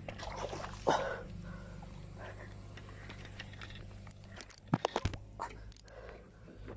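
Handling noise as a landed snakehead is grabbed by hand at a muddy ditch bank: a sharp knock about a second in, a quick cluster of knocks around five seconds, and a few short voice-like sounds between them.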